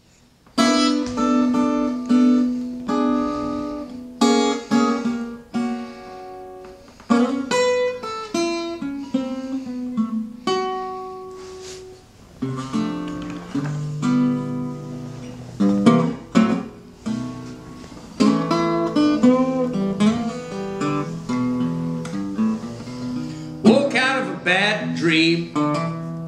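Acoustic guitar played solo as a blues introduction: plucked notes and chords ringing out over a moving bass line, with a quick run of strums near the end.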